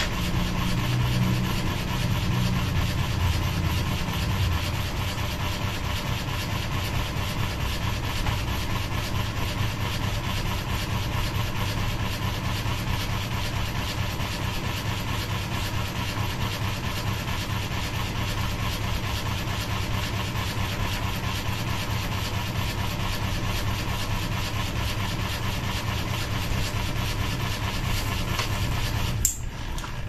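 Ceiling fan running with a sheet of paper held into its blades, each passing blade slapping the paper in a rapid, steady flutter over the motor's hum. The flapping cuts off suddenly near the end.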